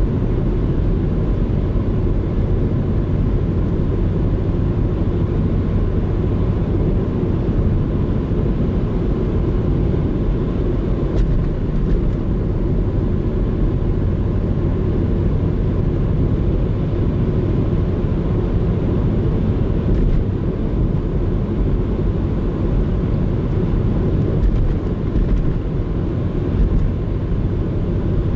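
Subaru Legacy (BH5) cruising at a steady speed, its engine and tyre-on-road noise heard from inside the cabin as an even, low rumble.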